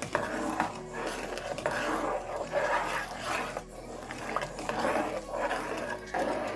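Spoon stirring and scraping through a pot of gumbo, in irregular strokes.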